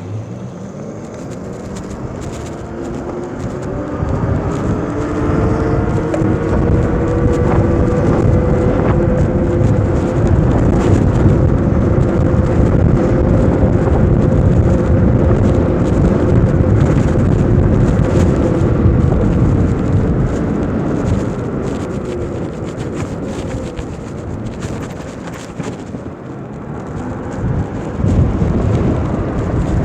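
Electric motorbike's motor whining as it speeds up over several seconds, holds a steady pitch while cruising, then winds down, under heavy wind buffeting on the microphone.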